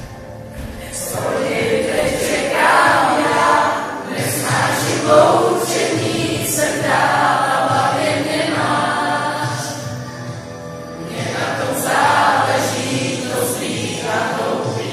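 A group of teenagers singing a song together, many voices at once, swelling and easing off in phrases.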